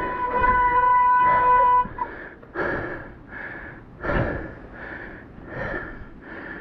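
A mountain bike's steady high-pitched whine for about two seconds that cuts off suddenly, followed by quick, rhythmic heavy breathing, about two breaths a second.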